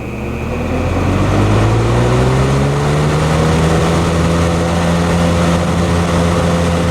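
A vintage General Electric W-26 3-speed box fan starting up on high speed. Its motor hum and blade rush rise in pitch as it spins up, then settle into a steady run after about two to three seconds.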